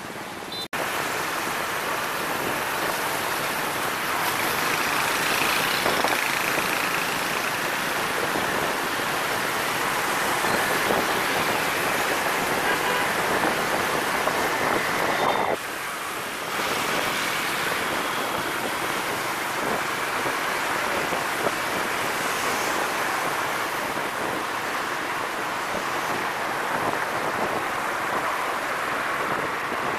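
Steady road and traffic noise heard from a moving motorbike in busy city traffic of scooters and cars. It grows louder just under a second in and drops briefly around the middle.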